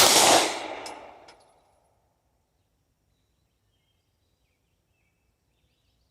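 A single 9mm Glock 19 pistol shot, its report dying away over about a second and a half.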